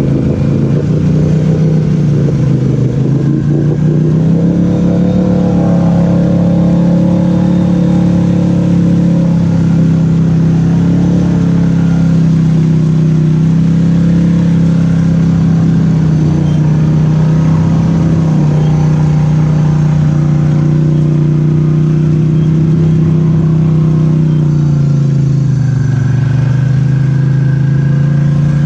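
Polaris Sportsman 850 High Lifter's parallel-twin engine running at raised, steady revs as the quad churns through mud water. The revs climb a few seconds in, hold, and drop back near the end.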